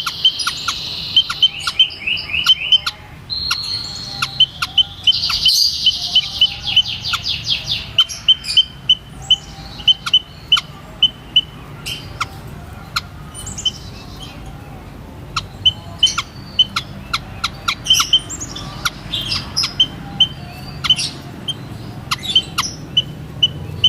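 White-headed munia calling: thin, high-pitched notes repeated in quick series. Dense rapid runs come in the first few seconds and again a little later, followed by spaced single notes.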